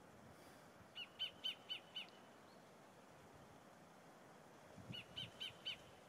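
Sacred kingfisher calling: two series of about five sharp, evenly repeated notes, about four a second, one about a second in and another near the end.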